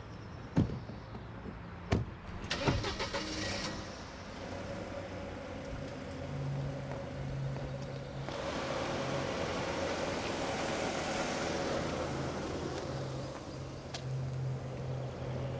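A few knocks, such as a car door shutting, then a car engine starts and keeps running with a steady low hum, growing louder from about eight seconds in.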